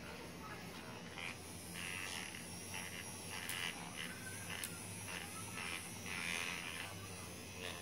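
Small vibrating wire-tined head massager buzzing steadily as it is rubbed over a beagle's fur, with short scratchy bursts whenever the tines are pressed and dragged.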